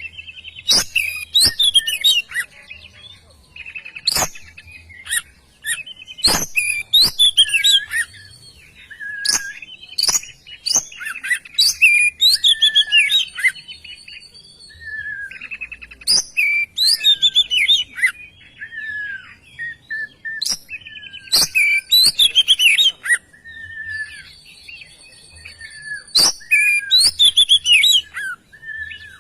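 Oriental magpie-robin (kacer) singing loudly in repeated bursts of varied song, rapid whistled glides and trills, with sharp clicks between and among the phrases.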